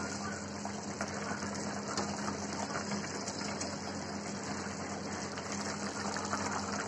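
Thick curry simmering and bubbling in a kadhai on a gas stove, a steady hiss over a constant low hum, with small scattered clicks from a metal spatula stirring against the pan.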